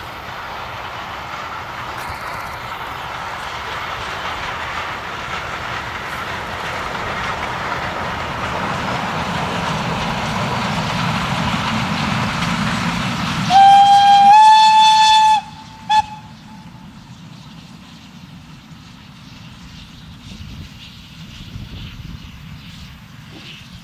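TKt48 steam tank locomotive and its train running past, growing louder as it approaches. About halfway through it gives a long, loud steam whistle blast that rises slightly in pitch and stops abruptly, followed by a brief second toot, after which the train noise is much quieter.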